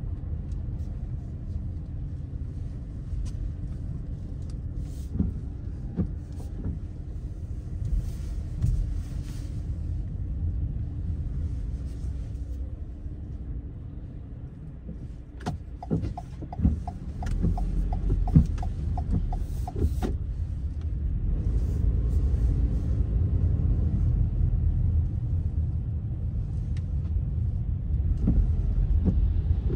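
Car cabin rumble while driving slowly on wet pavement: low engine and tyre noise, with a run of evenly spaced ticks, about two a second, for a few seconds just past the middle.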